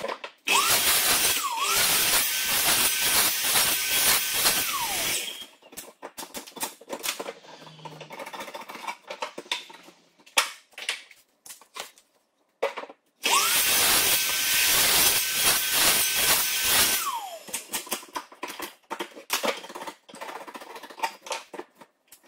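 Sliding compound miter saw started twice. Each time the motor whines up to speed, runs steady while the blade cuts through a larch board, then winds down after about four seconds. Between the two cuts, wooden knocks and clicks of boards being handled.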